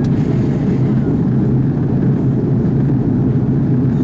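Steady low rumble of an Airbus A330-300's engines and rushing air, heard inside the cabin as the airliner descends on approach.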